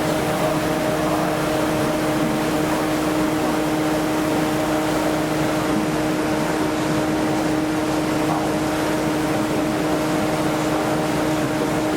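Tour boat's engine running steadily: a constant hum at a fixed pitch under an even wash of engine and water noise.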